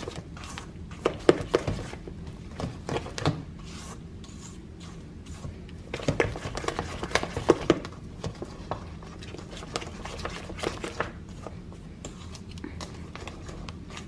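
Silicone spatula stirring thick cookie dough in a stainless steel mixing bowl: irregular scrapes and taps of the spatula against the metal, heavier in a few spells.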